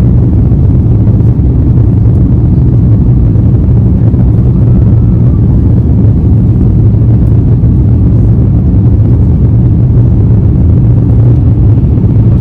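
Airliner cabin noise during takeoff: a loud, steady, low rumble of the jet engines and airflow heard from inside the passenger cabin.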